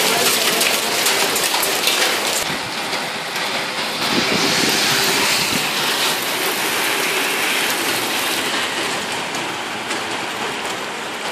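Heavy rain mixed with hail pelting hard ground and surfaces: a dense, steady hiss, with many sharp little ticks of hailstones striking in the first couple of seconds.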